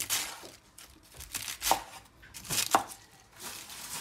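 Kitchen knife slicing through a head of iceberg lettuce on a wooden cutting board: several crisp, crunching cuts, with the loudest two near the middle.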